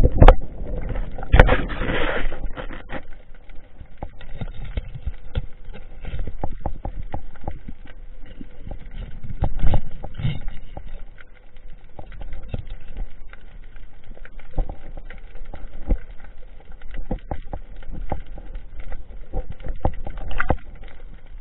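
Muffled underwater noise picked up by a diver's camera: low rumbling water movement with scattered clicks and knocks, and a louder rushing burst in the first couple of seconds.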